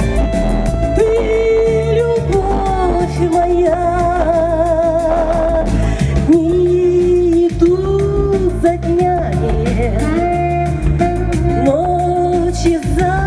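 A song over a stage sound system: a backing track with bass and beat under a long-held, wavering wordless melody. This is the break between verses.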